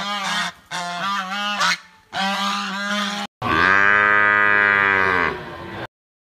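Waterfowl honking: a run of short, pitched honks with wavering pitch. After them comes one long, loud moo from a bovine that cuts off suddenly.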